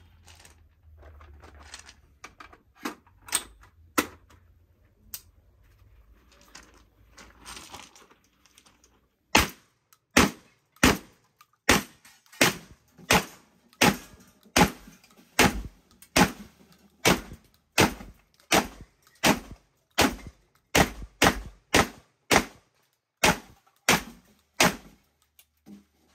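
A few scattered metallic clicks and knocks as a drum magazine is handled and fitted to a Derya MK-12 semi-automatic 12-gauge shotgun. Then, about nine seconds in, the shotgun fires about twenty-two shots in steady succession, roughly one and a half a second, emptying the drum.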